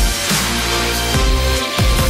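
Loud electronic background music with a deep, gliding bass line and a strong beat.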